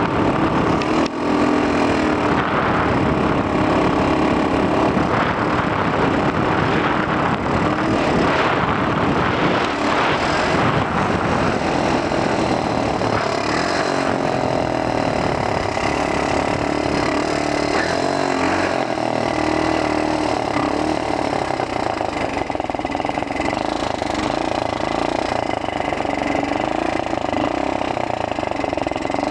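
X18 super pocket bike's small engine running under dense wind noise on the helmet-mounted microphone. Its pitch wanders with the throttle at first, then holds a steady note through the second half.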